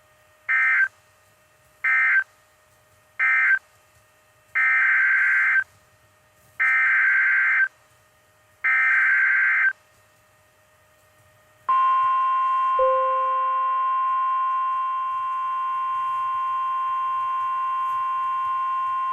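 NOAA Weather Radio SAME data bursts: three short end-of-message bursts closing the tornado warning, then three longer header bursts announcing the next alert. About twelve seconds in, the steady 1050 Hz warning alarm tone begins and holds.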